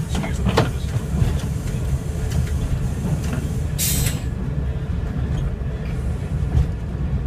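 Class 141 Pacer railbus running along the line, heard inside the cab: a steady low rumble from the diesel and the four-wheel running gear, with a few clicks from the wheels on the track. A short hiss comes about four seconds in.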